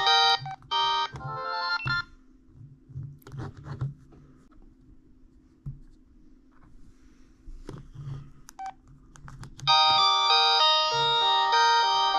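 An old 2000s-style cell phone ringtone playing on a phone: a quick electronic melody of bright, stepping notes. It stops about two seconds in, a few faint clicks follow, and the melody starts again near the end.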